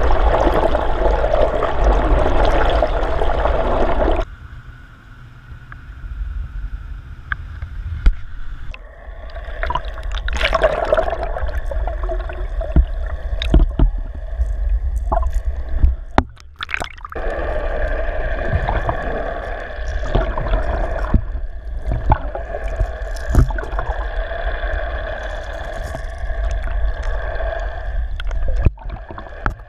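Water rushing and gurgling over an underwater camera housing towed through the sea, with the trolling boat's engine drone carried through the water as a steady hum. The rush is heavy for the first few seconds, drops off sharply, then builds back to a steady level with scattered knocks and bubbling.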